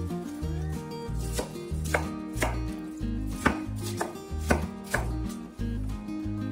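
Knife chopping on a cutting board: about seven sharp knocks, roughly two a second, starting about a second and a half in and stopping around five seconds, over background music.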